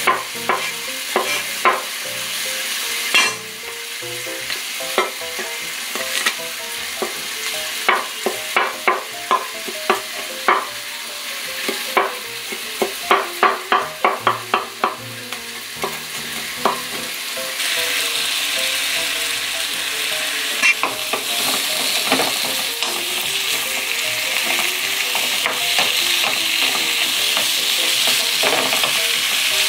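A knife chopping garlic on a wooden cutting board: sharp, irregular chops, some in quick runs, over a steady hiss. A bit past halfway the chopping stops and sliced zucchini and onion sizzle steadily in a frying pan.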